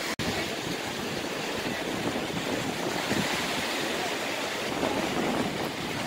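Black Sea surf: small wind-driven waves breaking and washing up on a sandy beach, a steady rushing with wind on the microphone.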